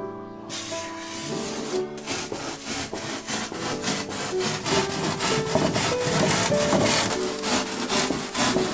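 A knife sawing back and forth through a white foam insulation board, a quick, even run of rasping strokes that gets going about three seconds in. Soft background music plays underneath.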